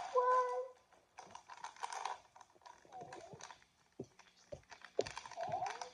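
Crinkling and rustling of a printed toy mystery bag being handled, in short spells, followed by three soft knocks about four to five seconds in.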